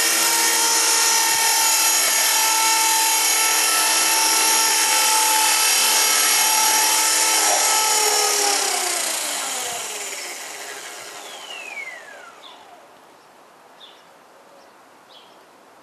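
KDS 450 SV electric RC helicopter's brushless motor and rotor running with a steady, high whine, then spinning down about eight seconds in as the whine falls in pitch and fades away. A few faint chirps follow near the end.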